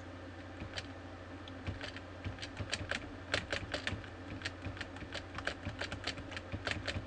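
Computer keyboard keys pressed one at a time in an irregular run, a few clicks a second, mostly from about two seconds in: repeated keystrokes paging through a text file in a terminal.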